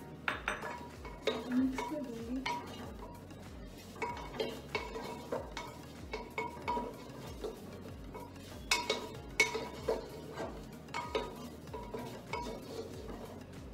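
Wooden spatula stirring chopped potatoes and capsicum frying in a clay pot, with irregular knocks and scrapes of the spatula against the pot's sides, busiest in a run of strokes near the middle and again about two-thirds of the way in.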